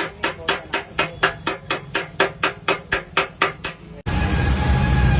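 Rapid, even hammer blows on the sheet-metal fuel tank of a Hero Splendor motorcycle, about four a second, each with a high metallic ring, as the tank is beaten into shape. About four seconds in they cut off abruptly to a steady rumble of vehicle noise.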